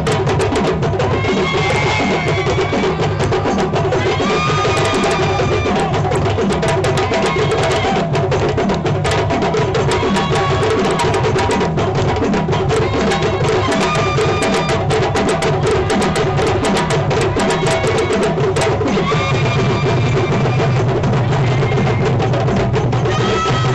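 Djembe drum ensemble playing a fast, steady rhythm, with deep strokes repeating about two to three times a second and dense sharp slaps over them.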